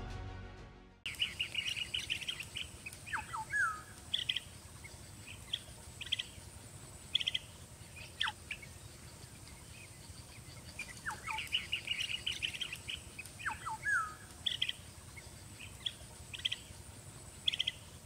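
Blue-tailed bee-eaters calling: short rolling, trilled chirps in little clusters, with a few sharp downward-sliding whistled calls, over a steady high-pitched hum.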